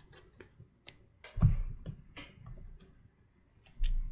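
Sleeved trading cards being handled on a playmat while the hand is put back and redrawn for a mulligan: scattered light card clicks and two dull knocks of the deck set down, about a second and a half in and near the end.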